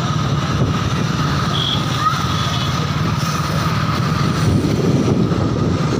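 Steady low rumble of a vehicle riding along a street, engine and wind on the microphone mixed together, with faint voices in the background near the end.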